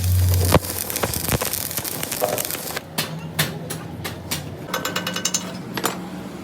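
Metal workshop noise: a loud low hum for the first half-second, then scattered metallic clicks and knocks. Near the end comes a fast rattling that lasts about a second.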